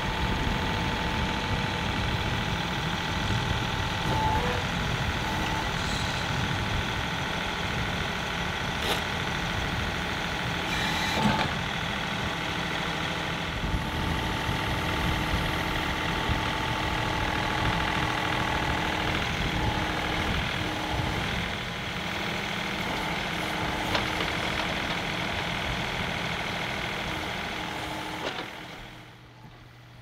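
John Deere 2038R compact tractor's three-cylinder diesel engine running steadily while its backhoe works, with a steady whine and a few sharp clanks over it. The sound drops away just before the end.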